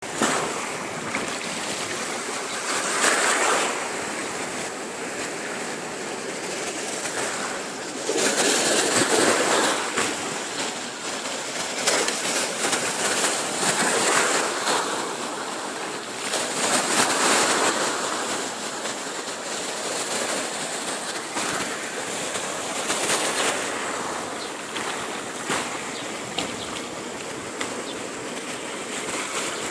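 Ocean surf: a continuous rush of breaking waves and moving water, swelling louder every few seconds as waves break and wash in.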